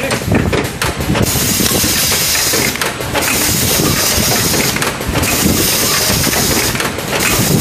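Carton-packing machine running on a factory line: a steady loud hiss over dense mechanical clatter, the hiss dropping out briefly about every two seconds.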